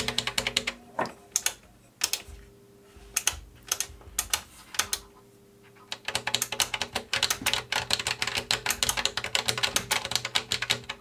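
Push buttons on a ddrum4 SE drum module's front panel clicking as they are pressed in quick runs, like fast typing, with short pauses about two and five seconds in. A faint steady hum lies underneath.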